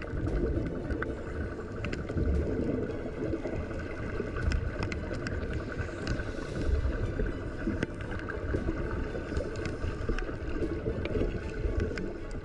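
Muffled underwater sound picked up by a camera in a waterproof housing: uneven low rumbling of moving water, with scattered clicks and a faint steady hum.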